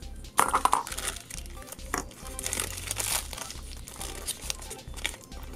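Foil blind bag crinkling as it is handled in the fingers, in irregular bursts, loudest shortly after the start and again around the middle.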